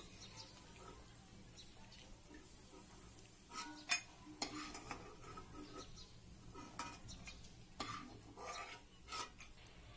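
Steel spoon scraping and clinking against a nonstick kadai as fried cashews and almonds are scooped out of hot ghee, over a faint sizzle. After a quiet start come a handful of sharp clinks, the loudest about four seconds in.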